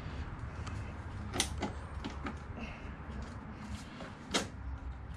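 Light metallic clicks and knocks of the exhaust-mount bolt and spacer being handled at a motorcycle's rear footrest hanger, with two sharper knocks, one about a second and a half in and one near the end.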